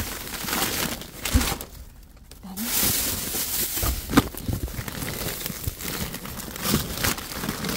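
Clear plastic bags crinkling and cardboard rustling as gloved hands shift plastic-wrapped meat packs, with a few sharp knocks and a brief lull about two seconds in.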